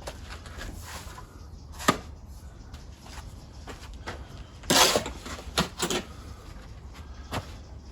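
A handful of sharp knocks and one short, louder scraping clatter, with a steady low rumble underneath.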